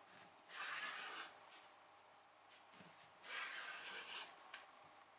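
Large kitchen knife drawn twice through a stack of folded noodle dough, each cut a short scrape of the blade against the wooden cutting board.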